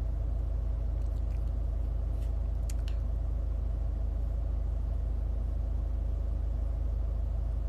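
Steady low hum inside a parked car's cabin, with a couple of faint clicks a little under three seconds in.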